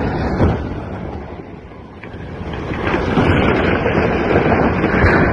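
A wind turbine rotor of three blades and a hub, dropped from a crane, crashing into the sea with a massive splash: a loud rush of churning water that swells again about halfway through, mixed with wind buffeting the microphone.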